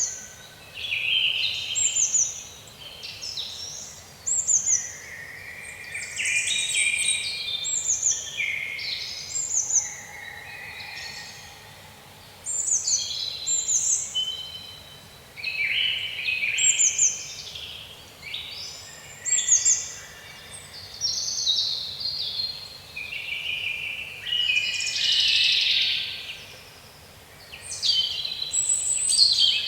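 Birds chirping and singing: a near-continuous run of short, high notes that slide downward, several overlapping at times.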